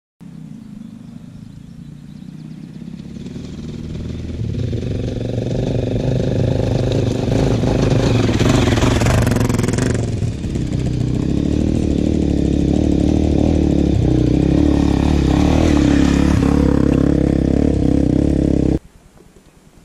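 Honda CRF250 trail bike's single-cylinder engine running on a rocky track, growing louder as the bike approaches, with a brief drop in engine note about ten seconds in. It then runs loud and steady until the sound cuts off abruptly near the end.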